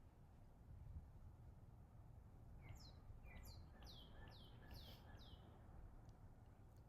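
A songbird sings a short phrase of about six quick notes, each sliding downward, roughly two a second, starting a little under three seconds in. It is faint, over a low steady background rumble.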